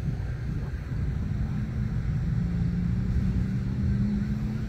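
Low rumble of wind buffeting the microphone beside open water. A steady low hum joins it about a second in and holds to the end.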